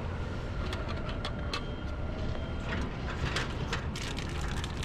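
Scattered clicks and knocks at a vending machine, most of them bunched together as a hand pushes through the pickup flap to take out a packaged snack near the end. A steady low rumble lies underneath.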